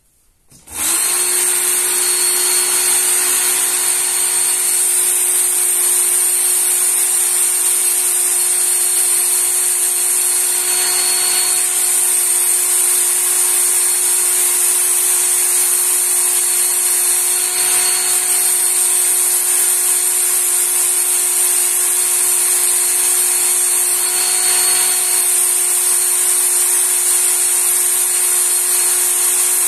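Work Sharp electric belt knife sharpener switching on about a second in, then running steadily with a high-pitched whine while a knife blade is held against the moving abrasive belt.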